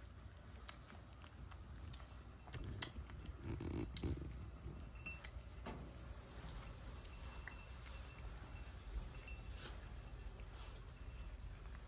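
Cat eating wet food from a ceramic bowl: scattered soft licking and chewing clicks, with the bowl clinking lightly a few times.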